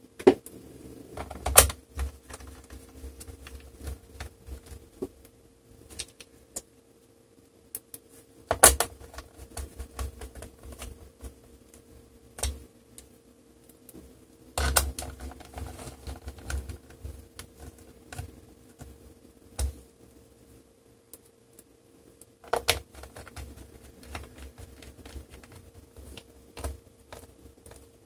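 Small screwdriver driving screws into a laptop's plastic bottom cover: irregular light clicking and ticking of the tool on screws and case, with four sharper, louder clicks spread through.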